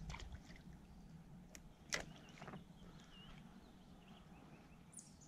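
Quiet pond ambience: a few faint bird chirps and several light clicks of fishing tackle being handled, the sharpest about two seconds in.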